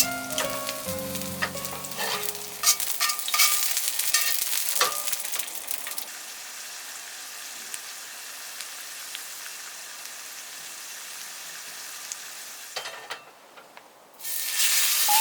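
Meat sizzling in a hot pan, with sharp pops and crackles over the first few seconds, then settling to a steadier, quieter sizzle. The sizzle dips briefly near the end before a louder hiss returns.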